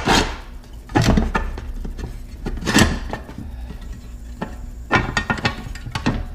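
Metal parts of an outboard recoil starter being handled: scattered metallic clinks and knocks, the loudest about a second in, near three seconds, and a cluster around five to six seconds.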